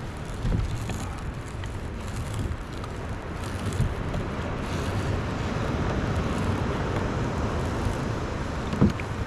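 Steady wind noise on the microphone with water and rope noise as a lobster hoop net is hauled up hand over hand, with one sharp knock near the end.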